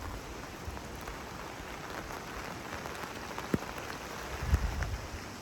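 Steady rain of large drops falling, with a few sharp drop hits standing out and a low rumble swelling briefly near the end.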